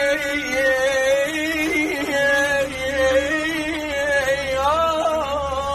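A man singing an Arabic song, holding one long, ornamented wordless note with vibrato that climbs higher about four and a half seconds in.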